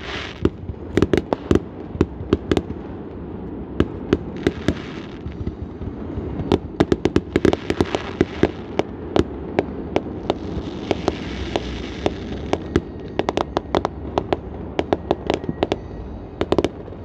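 Backyard consumer fireworks going off in a rapid, irregular run of sharp bangs and pops, with stretches of crackling shells about four, eight and eleven seconds in.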